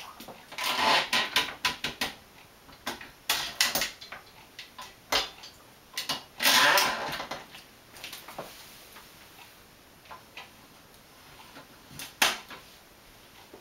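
Red floor-standing wine corker being worked: clicks and knocks from its lever and jaws and from glass wine bottles set on and lifted off its base, with two longer rasping strokes as the lever drives a cork in, about a second in and the louder one about six seconds in. A single sharp knock comes near the end.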